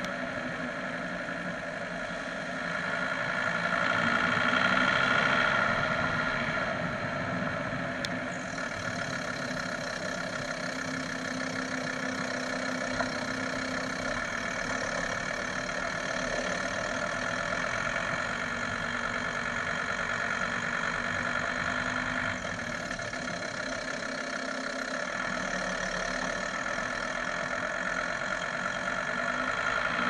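Volkswagen T4's 2.5 TDI five-cylinder diesel engine and drivetrain running with the van on the move, heard from underneath the vehicle with road noise mixed in. The sound swells louder about three to six seconds in.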